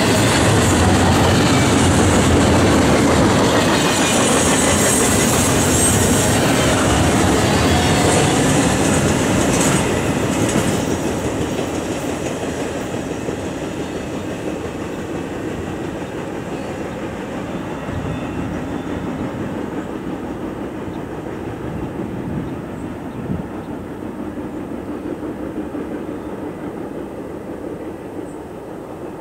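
Double-stack intermodal freight cars rolling past close by, their wheels rumbling along the rails. About ten seconds in the last car goes by and the sound fades steadily as the train moves away.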